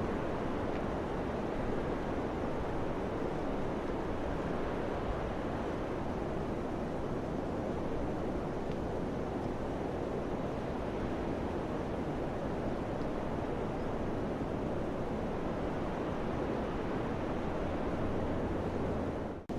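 Steady rushing wind, an even hiss with no gusts or pauses, cutting out briefly at the very end.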